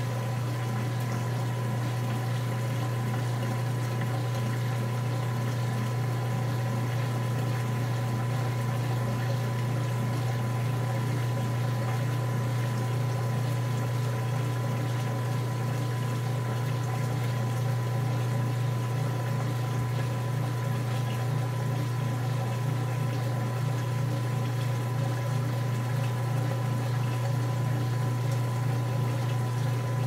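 KitchenAid top-load washing machine filling, water running steadily into the tub over the clothes. Under it, a steady low hum from the frequency converter that runs the American machine on Australian power.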